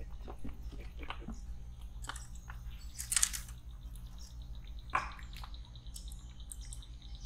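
Light splashing and dripping of lake water around a small boat, with one brief louder splash about three seconds in. A thin, steady, high insect buzz starts just after it.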